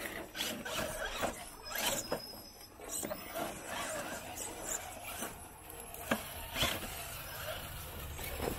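Small electric RC rock crawler working over rocks, its motor and gears giving a squealing whine under load, with scattered sharp clicks and knocks of tyres and chassis on stone.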